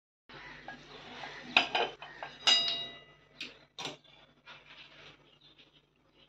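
Stainless steel kadai clinking and scraping against the gas burner's pan support as it is shifted into place, a handful of metal knocks, one about two and a half seconds in ringing on briefly.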